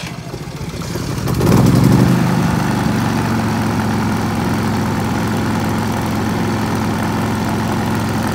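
Westinghouse iGen 4500 inverter generator just after its push-button start: the engine runs up, loudest at about a second and a half in, then settles to a steady idle in eco mode.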